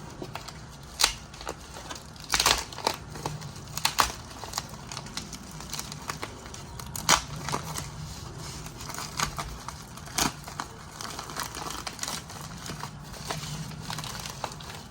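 Packaging being crinkled and pulled off by hand to unwrap small slabs, with irregular sharp crackles and clicks throughout.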